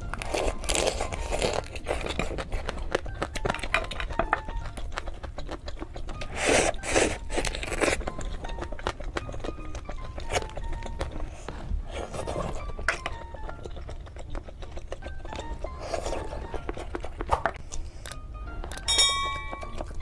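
Soft background music with a simple melody, over intermittent crunching and cracking of brown crab shell and wet chewing as the crab meat is pulled apart and eaten. A short chime rings near the end.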